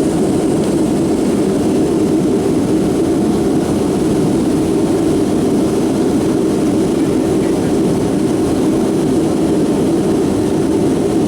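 Steady cabin noise of a Boeing 757-200 with Rolls-Royce RB211 turbofans, heard from a window seat: an even, unbroken rush of engine and airflow noise, strongest in the low-middle range.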